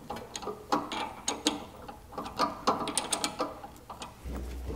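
Metal drill chuck on a drill press spindle turned and worked by hand, clicking and rattling in quick, irregular metallic ticks. A steady low hum starts near the end.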